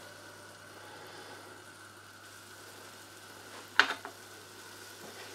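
Smoked bacon lardons frying gently in olive oil in a stainless steel pot over a low gas flame: a faint, steady sizzle over a low hum. A single sharp knock comes about four seconds in, with a smaller one just after.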